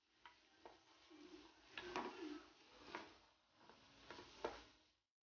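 Wooden spatula stirring and scraping chopped beetroot, onion and green chilli around an aluminium pan, with scattered sharp taps of the spatula on the pan. The loudest taps come about two seconds in and near the end.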